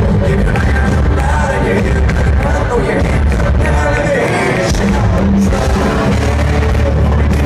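Live country-rock band playing loudly through a concert sound system, with electric guitars, a heavy bass and a male lead vocal singing.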